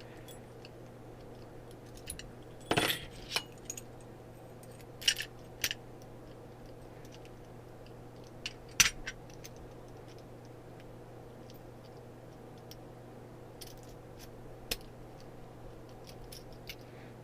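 Keys and a padlock being handled: scattered small metallic clicks and clinks as keys are sorted and tried in the lock, with the loudest click about nine seconds in.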